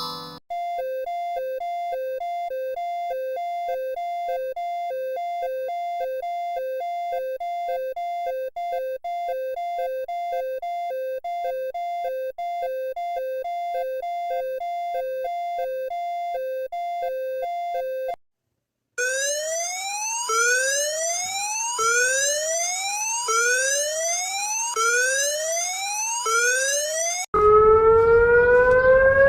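Emergency alert alarm tones played back one after another. First comes a two-tone signal that switches between a low and a high pitch about twice a second for around 18 seconds. After a brief gap come rising sweeping whoops, roughly one every second and a half, and near the end a louder siren rising and falling in pitch.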